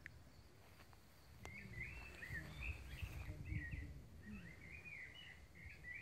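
A songbird singing quick, warbling chirpy phrases that begin about a second and a half in, over a low rumble on the microphone.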